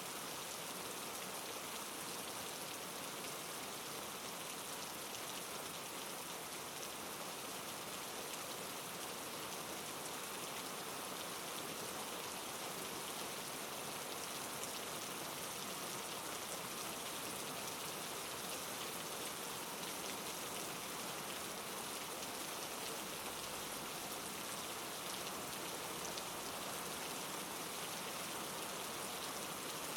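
Steady rain falling, an even hiss that doesn't change, with a few faint crackles of burning firewood.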